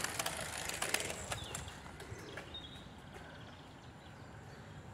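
Racing bicycle passing close by, its freewheel hub ticking rapidly for about a second and a half before fading away.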